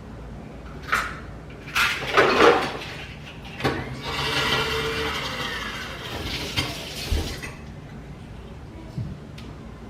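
Glassware and dishes being handled on a kitchen counter: a few clinks and knocks, a louder clatter about two seconds in, then a few seconds of steady rushing sound.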